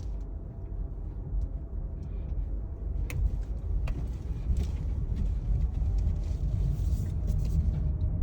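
Freight train's low rumble growing steadily louder as it approaches and runs over the level crossing, with a couple of faint clicks partway through.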